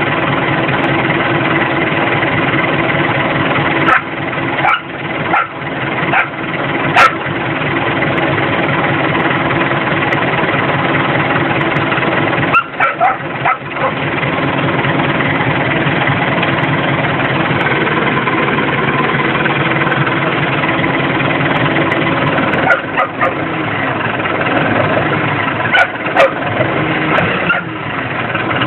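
Massey Ferguson 294S tractor's diesel engine running steadily, heard from inside the cab, with a few short clunks and rattles.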